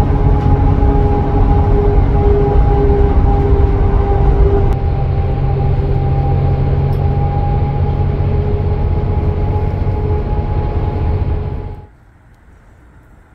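Bus cabin noise while driving on a highway: steady engine and road rumble with a constant whine running through it. About twelve seconds in it cuts off abruptly to faint street ambience.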